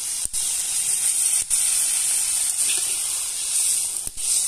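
Chicken curry in an iron kadai hissing and sizzling steadily as hot water is poured into the hot oil and stirred.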